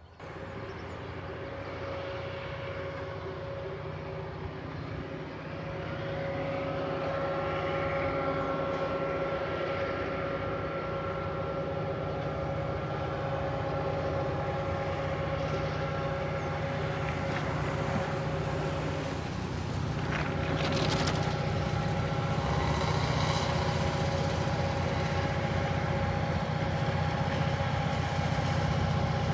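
EMD SD40-2 diesel locomotive engine running steadily, growing louder as the train draws near.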